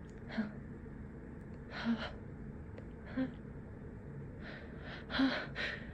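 A person's short, sharp gasping inhales building up to a sneeze that is being held back: single catches about every second and a half, then a quicker run of about four near the end.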